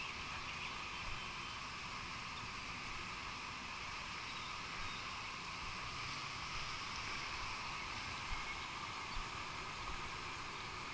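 Steady outdoor background noise: an even hiss with no single source standing out.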